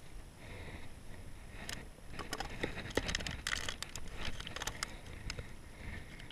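Hands rummaging in a soft-sided cooler, rustling packaging and handling a plastic soda bottle. A dense run of clicks and crinkles starts about two seconds in and eases off near the end.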